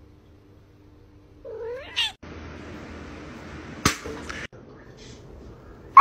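A cat gives one short meow that rises in pitch, over a faint low hum. After it comes steady room noise with a single sharp click.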